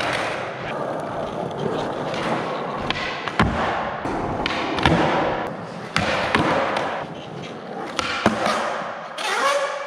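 Skateboard wheels rolling on a concrete floor, broken by several sharp clacks of tail pops, board landings and the board slapping down on the floor during flip-trick attempts.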